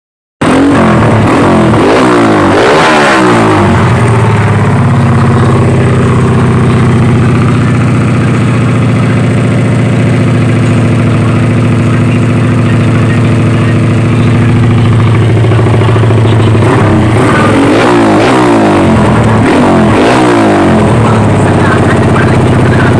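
Suzuki Smash 115 single-cylinder four-stroke engine running through a Daeng Sai 4 open exhaust pipe, loud. It is blipped up and down in quick revs near the start and again toward the end, and holds steady revs in between.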